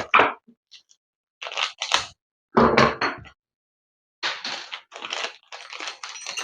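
Small plastic packets being opened and handled, crackling and crinkling in irregular bursts.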